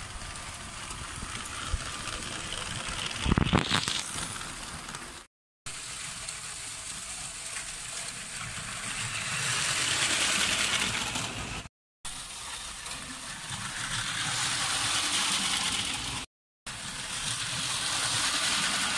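LEGO trains running on plastic track: a continuous rolling rattle that swells as a train passes close and fades again, about three times, with a loud clatter rising in pitch about three and a half seconds in. The sound cuts off abruptly several times between clips.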